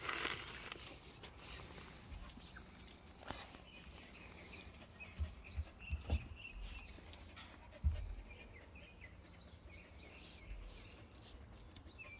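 Jindo puppies giving faint, short high squeaks and whimpers in scattered runs while being petted. A few low thumps come between five and eight seconds in, the loudest near eight seconds.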